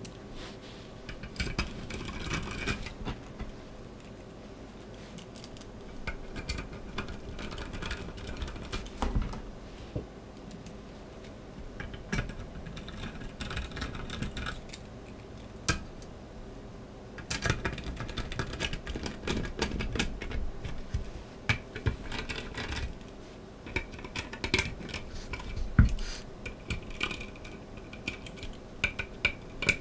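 Irregular small clicks, taps and scrapes of hands handling a computer CPU card while its heatsink screws are being fitted. The handling is sparse at first and busier in the second half.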